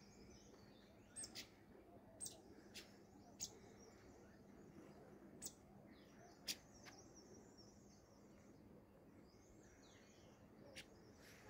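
Faint, short bird chirps, about ten single high notes scattered irregularly over a quiet background.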